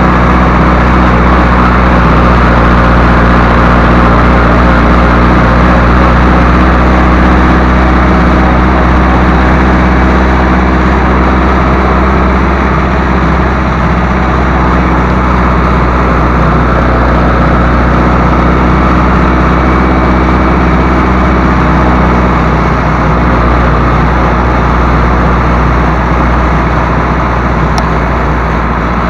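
Massey Ferguson 185 tractor's four-cylinder Perkins diesel engine running at a steady speed as the tractor drives along, heard loud from the driver's seat.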